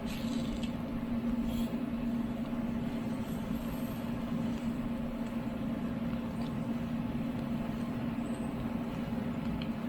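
A steady low hum from a running motor or engine, unchanging throughout, with a few faint ticks.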